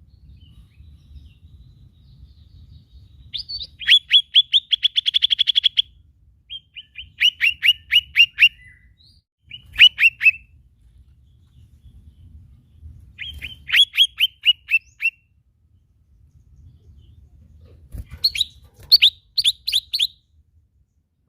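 Cucak ijo mini leafbird singing in bursts of rapid, sharp down-slurred chirps. There are five phrases with short pauses between them; the first, about four seconds in, runs into a fast trill.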